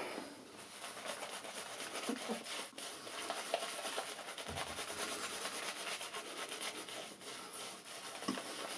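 Semogue 830 boar-bristle shaving brush working Palmolive Sensitive cream into lather on a few days' stubble: a steady, scratchy rubbing of quick brush strokes.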